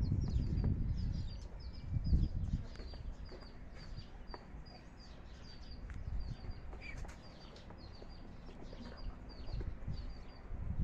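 Backyard fowl chirping: a steady run of short, high chirps, with a low rumble at the start and another about two seconds in.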